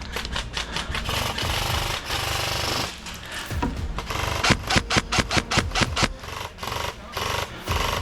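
Airsoft guns firing: a rapid string of sharp shots, a continuous burst from about one to three seconds in, then quick single shots at about four a second.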